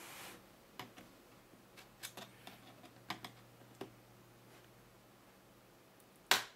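Small plastic clicks and creaks as a screwdriver pries at the edge of the ASUS EP121 tablet's plastic back cover, popping its retaining tabs loose: a scattering of light clicks over the first few seconds, then one much louder snap near the end.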